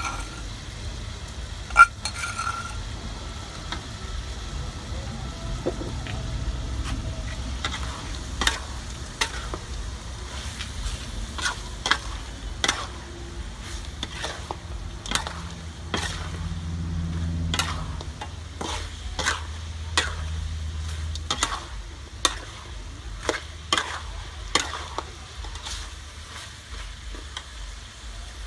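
Muscovy duck meat sizzling in a steel wok while a metal spatula stirs it, scraping and clicking against the pan at an irregular pace. Two sharp ringing clanks of metal on the wok come in the first two seconds.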